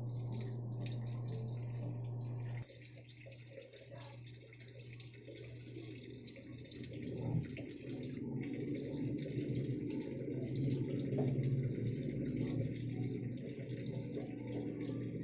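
Sharp ES-V75HP-GY automatic washing machine: a steady low hum cuts off about two and a half seconds in, then water rushes into the machine, growing louder.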